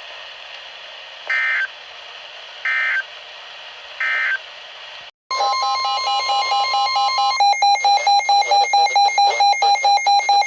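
Three short warbling data-burst beeps, the EAS end-of-message signal that closes a weather-radio warning. After a brief dropout comes a loud electronic alert: a steady tone, then from about two seconds later a fast pulsing beep of several pitches at about four pulses a second.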